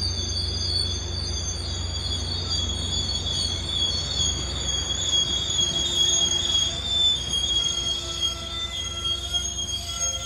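Sound Transit Sounder commuter train's bilevel coaches moving past with a steady high-pitched wheel squeal over a low rumble. A lower set of squealing tones joins in near the end.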